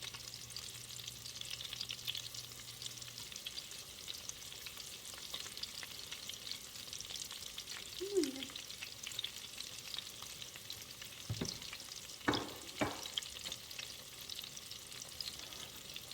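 Breaded chicken cutlets shallow-frying in hot oil in a pan, a steady crackling sizzle. A short falling squeak about halfway and a few sharp knocks about three-quarters of the way through.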